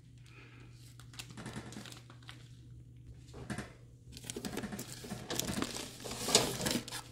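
Unicorn 3T plastic filter-patch spawn bags of hydrated white millet crinkling and rustling as they are handled and shifted by hand: a string of short crinkles, faint at first and louder from about four seconds in.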